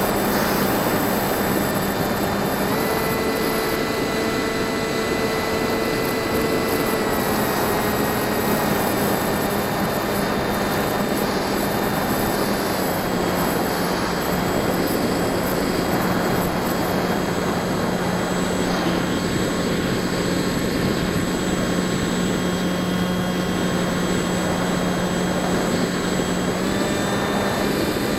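Bixler 1.1 RC plane's NTM 2200kv electric brushless motor and propeller running in flight, a steady hum that steps up or down in pitch a few times as the throttle changes, over a constant rush of air noise.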